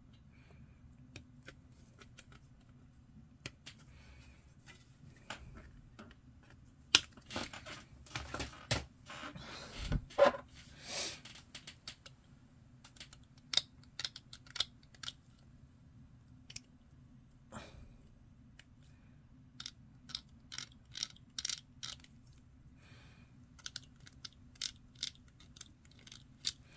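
Small plastic miniature parts being handled and trimmed by hand. A cluster of louder clicks and rustles from the plastic sprue comes about a third of the way in. Over the second half a craft-knife blade scrapes mould lines off a small plastic part in short, light clicking strokes.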